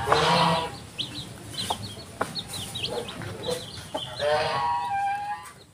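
Village mother hen (ayam kampung) clucking, with her chicks peeping steadily and rapidly around her. A louder call sounds right at the start, and a longer drawn-out call runs from about four seconds in.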